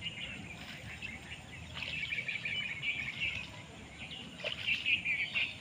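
Small birds chirping and twittering in short busy bursts: at the start, about two seconds in, and again near the end.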